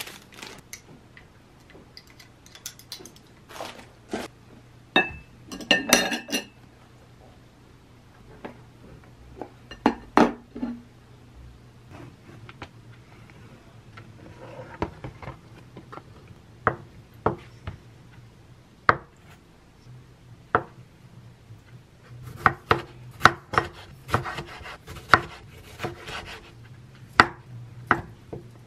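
A ceramic plate clinks as it is handled and unwrapped. Later a kitchen knife slices tofu, tomato and chicken breast on a wooden cutting board, with a quick series of sharp taps on the board near the end.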